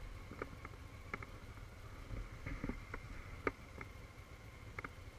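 Motorcycle engine running at low speed, a faint low rumble through the helmet-mounted camera, with scattered light clicks and knocks at irregular moments.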